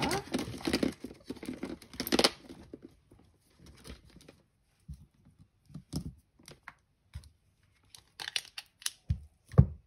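Paper and craft materials being handled on a work desk: a couple of seconds of rustling and crinkling, then scattered light taps and clicks, and one firmer knock near the end.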